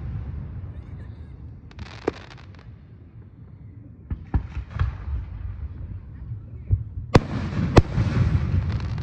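Aerial fireworks shells bursting: scattered sharp bangs and crackles over a low rumble, with the two loudest booms close together near the end.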